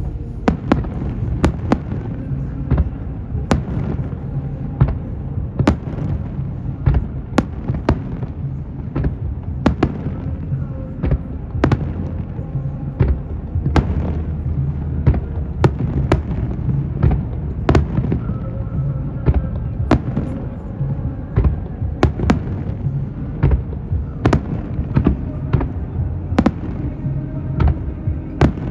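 Aerial fireworks display: a steady run of sharp shell bursts, more than one a second, over a continuous low rumble.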